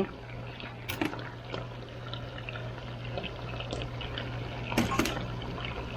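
Limes squeezed by hand, their juice dripping and trickling into a pan of barbecue sauce. A steady low hum runs underneath, with sharp clicks about a second in and near the end.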